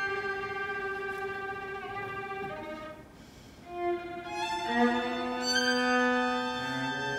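String quartet of violins, viola and cello playing slow held notes. The music drops quiet briefly about three seconds in, then swells back as new sustained chords enter, with a low cello note joining near the end.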